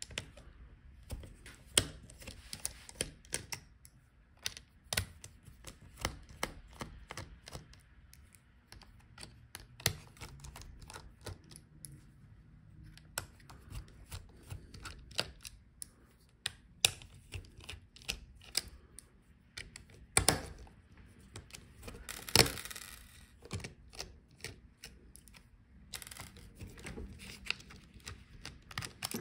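Irregular small clicks and taps of a precision screwdriver working the screws of a laptop's plastic-and-metal chassis while a rear vent bracket is unscrewed, with two louder knocks about two-thirds of the way through.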